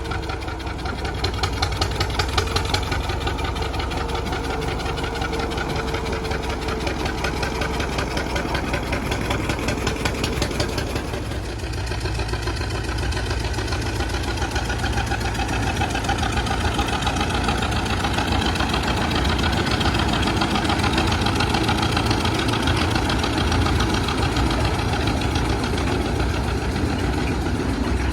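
An engine running steadily with a fast, regular beat, changing a little about eleven seconds in.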